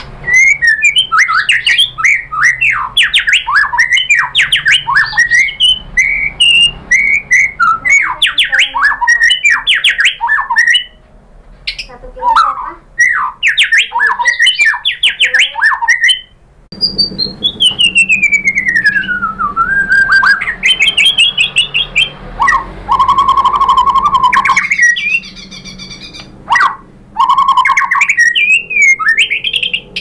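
White-rumped shama singing a loud, varied song of fast trilled phrases broken by short pauses. About halfway through it gives a long whistle sliding down, then a rising whistle and a held steady note.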